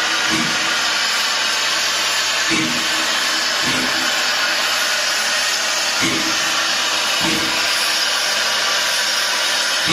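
Steam locomotive FS 740.409 hissing steadily with escaping steam, with short low beats that come in pairs about every three and a half seconds.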